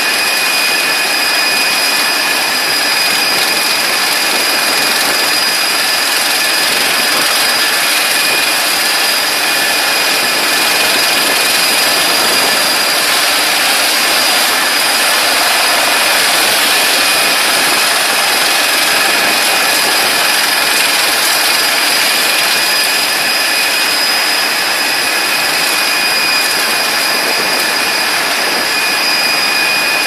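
Large Eurochippers truck-mounted wood chipper running steadily at working speed: a loud, even noise with a constant high whine.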